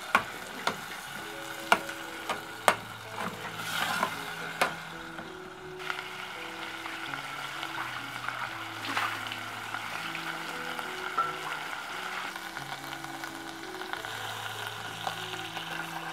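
Chopped tomatoes, onions and garlic sizzling in oil in a stainless steel pot. A spatula stirs and knocks sharply against the pot four or five times in the first three seconds. Soft background music with held low notes plays underneath.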